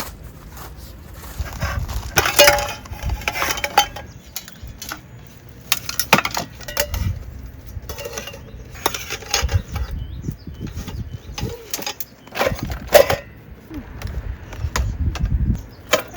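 Camping gear being handled by hand: irregular clinks, knocks and rustling, with a few dull thuds.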